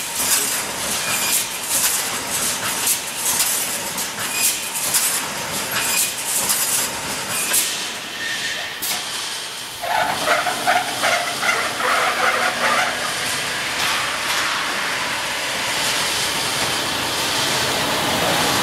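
Mechanical rebar mesh welding machine running: a series of sharp crackling strikes as the weld heads fire on the wire crossings, over a continuous mechanical clatter. About ten seconds in, the strikes give way to a steadier hissing din with some held tones.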